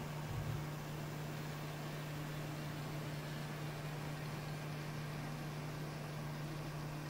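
Steady low hum with an even hiss as an N scale model freight train runs along the track.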